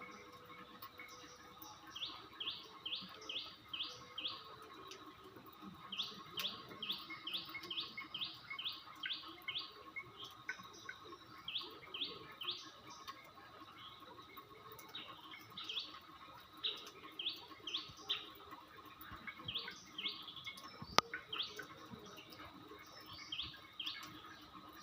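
A songbird chirping in repeated runs of four to eight short, high notes, about three a second, with pauses of a second or two between runs. A steady faint hum runs underneath, and a single sharp click comes near the end.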